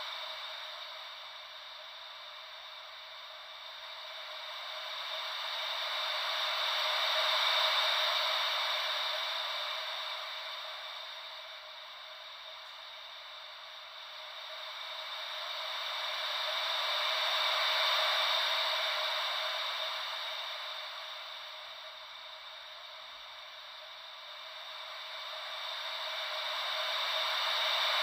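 Gentle ocean-wave white noise: a soft hiss with no low rumble that swells and ebbs slowly, cresting about every ten seconds like waves washing in.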